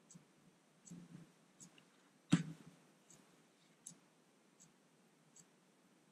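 Hobby servo closing the CrowBox lid in small discrete steps: a faint tick roughly every three-quarters of a second, with one louder knock about two seconds in.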